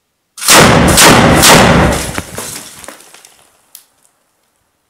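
A mounted machine gun fires a short burst inside a room: about three heavy reports half a second apart, ringing on in the room's echo for a couple of seconds before dying away, followed by one sharp click.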